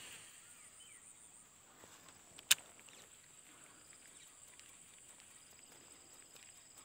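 Steady high-pitched insect drone from the vegetation, with a faint pulsing trill joining about halfway through. A single sharp click stands out about two and a half seconds in.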